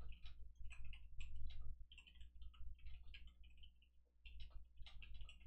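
Soft, irregular clicking and tapping, several clicks a second in uneven clusters, over a steady low hum.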